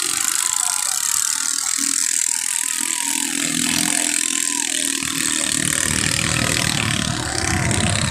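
Ketinting longtail boat engine running steadily, its low hum coming in more strongly about three seconds in, over a constant hiss.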